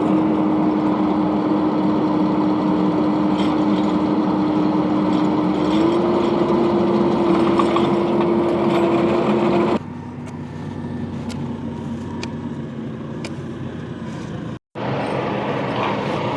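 Tractor engine running steadily while driving a post-hole auger, with a held whine that steps up slightly in pitch about six seconds in. Near ten seconds the sound drops abruptly to a quieter engine drone, with a brief break shortly before the end.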